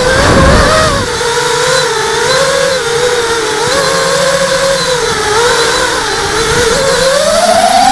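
ZMR hexacopter's six brushless motors and propellers whining, heard from the onboard camera, the pitch wavering up and down with throttle and rising near the end. A short burst of wind rumble on the microphone about half a second in.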